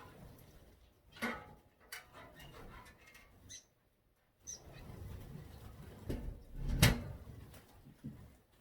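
A few short, high chirps from small aviary birds, between scattered knocks and rustles of decorations being handled. The loudest is a sharp knock about seven seconds in.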